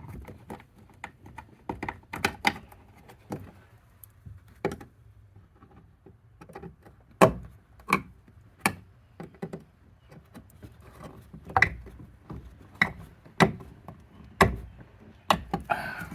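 Irregular clicks and knocks of a Phillips screwdriver and plastic car-door trim being handled as the door handle trim and its screw are refitted, with a few sharper knocks among them.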